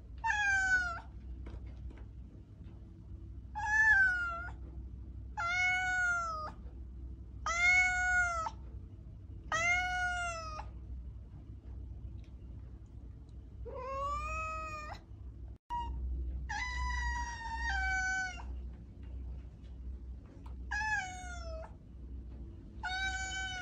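A cat meowing again and again: about ten separate high meows, each under a second long, some arching and some falling in pitch at the end. A faint steady low hum runs underneath.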